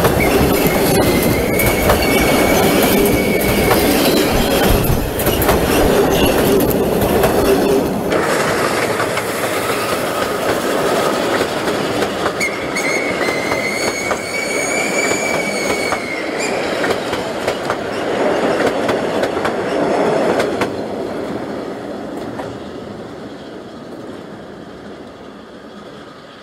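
Passenger coaches of a steam train rolling past at close range, with wheels clattering over the rail joints. Twice a high, steady wheel squeal rises over the rumble, and the sound fades as the train draws away near the end.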